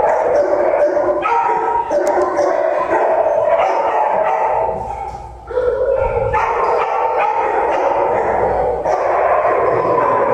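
Many dogs barking and howling together in a shelter kennel, a continuous din with a brief lull about five seconds in.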